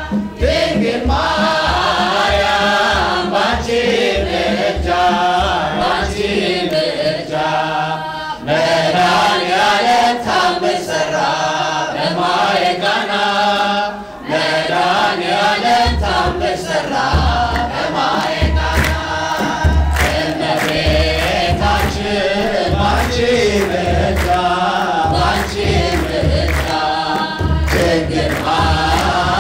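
Ethiopian Orthodox wedding hymn sung in unison by a choir of men and women, with a kebero drum beating a steady pulse under the voices that grows stronger about halfway through.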